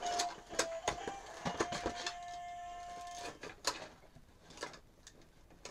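Clear plastic blister packaging of a toy box crinkling and clicking as it is handled, sparser and quieter after about four seconds. A faint held note sounds on and off during the first three seconds.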